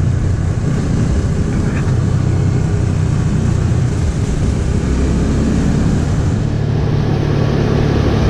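Motorcycle engine running steadily while riding, with wind and road noise over the microphone. The engine note settles into a steadier hum after about six and a half seconds.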